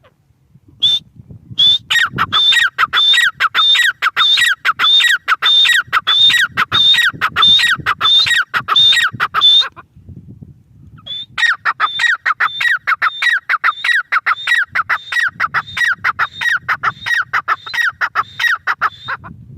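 Grey francolin (teetar) calling: a loud, rapidly repeated series of high, falling notes, about two or three a second, in two long bouts with a short pause between them.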